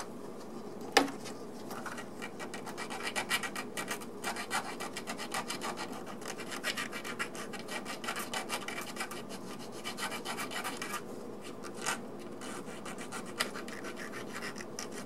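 Small flat file rasping in quick, short back-and-forth strokes, filing casting flash off a model locomotive's bottom plate. A single sharp click about a second in.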